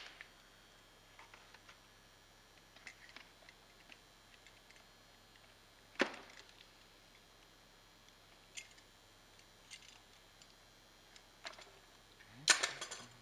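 Sporadic clicks and knocks of small hand work on a vacuum cleaner's wiring and plastic parts: a sharp click at the start, a louder knock about six seconds in, faint ticks between, and a brief clatter near the end.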